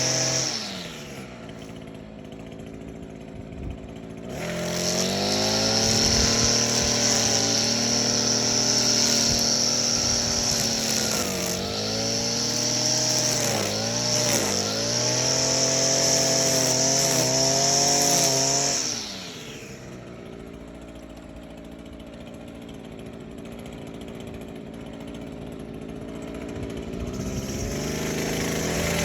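Echo SRM-225 string trimmer's small two-stroke engine being throttled: it drops from high revs to idle at the start, revs back up about four seconds in and holds at high speed with a few brief dips, falls back to idle after about fifteen seconds, then climbs again near the end.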